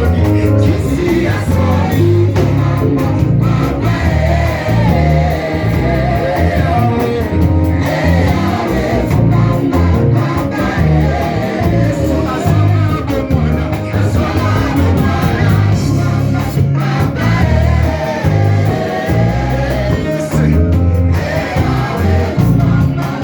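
Live gospel worship music in a church: singing over a band with a heavy, pulsing bass.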